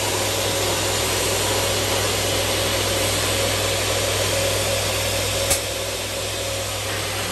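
TANK single-head 355 mm aluminium cutting saw running at speed, its induction motor and blade giving a steady hum with a higher whine. A single sharp click comes about five and a half seconds in, and the running sound is a little quieter after it.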